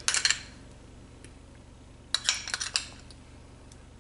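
Spoon clinking and scraping against a small glass bowl and a small steel saucepan as ghee is spooned into the pan: a quick run of clicks at the start and another about two seconds in.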